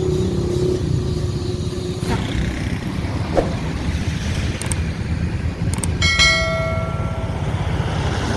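Road traffic: a steady low vehicle engine rumble, with one bell-like ringing tone about six seconds in that dies away over about a second.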